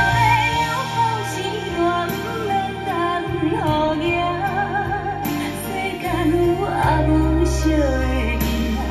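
A slow Taiwanese Hokkien ballad with a woman singing over bass and accompaniment, played back through Altec 604-8G 15-inch coaxial loudspeakers.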